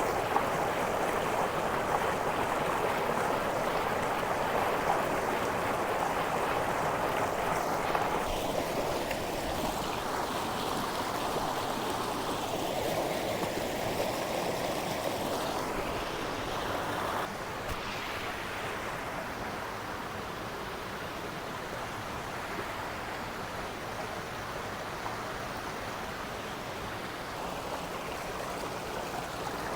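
A river rushing steadily, running high and heavy after a hurricane, its level dropping a little just past the middle.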